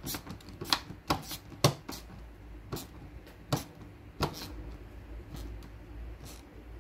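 Hands working small parts into a Land Rover Series door-top frame and its glass: about eight sharp, irregular clicks and taps in the first four and a half seconds, then only light handling.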